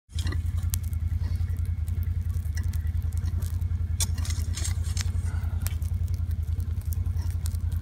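An engine running steadily with a low, fast pulse. Scattered clicks and scrapes from firefighters' hand tools working the smouldering ground sound over it.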